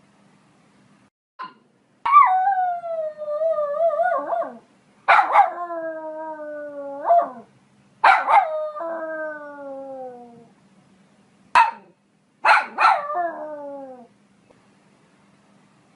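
Poodle howling in four long drawn-out cries, each starting with a sharp yelp and sliding down in pitch, with two short yips in between.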